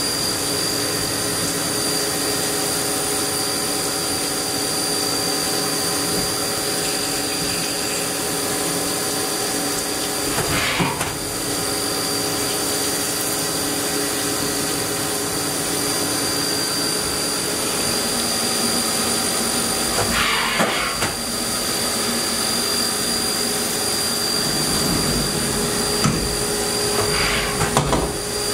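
Haas VF-2 vertical CNC machining center running a deburring program: a steady spindle and machine whine with several fixed tones, over the hiss of coolant spray. Brief louder swells of noise come about ten and twenty seconds in and again near the end.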